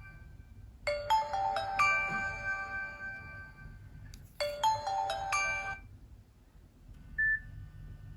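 Built-in alert tone of a Nokia C7-00 playing through the phone's small rear loudspeaker: a short phrase of bright chiming notes, played twice about three and a half seconds apart. A short single high beep follows near the end.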